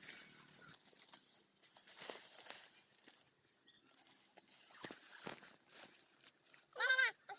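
Faint scattered rustling and light knocks, then near the end one short, loud animal call that rises and falls in pitch.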